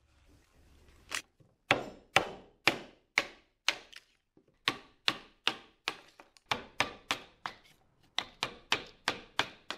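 Japanese hammer (genno) striking the handle of a striking chisel (tatakinomi) driven into hinoki cypress to chop out a mortise: about twenty sharp blows, roughly two a second, with a short break near the middle.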